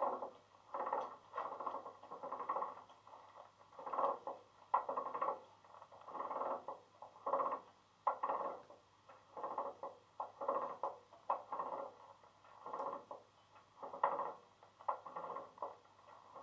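The sound decoder of a Bachmann Class 416 EMU model playing its Legomanbiffo sound file through the model's small speaker while the unit stands still: a pulsing sound that repeats roughly once a second, unevenly spaced, over a faint steady hum.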